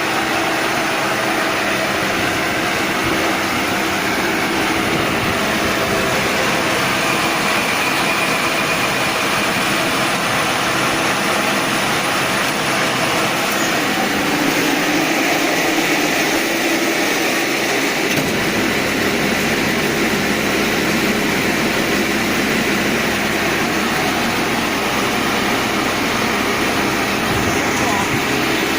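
Round baler and wrapper machine running: a steady, loud mechanical din, with a deeper low hum joining about two-thirds of the way through.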